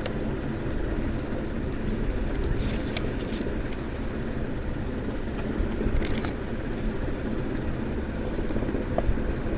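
Steady low rumble of background noise, with a few light clicks.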